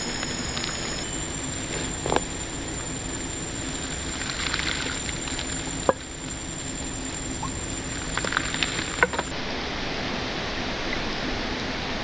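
Steady rush of flowing river water, with a thin high steady tone that stops about nine seconds in. A few sharp clicks and knocks stand out, the loudest about six seconds in and a cluster near nine seconds.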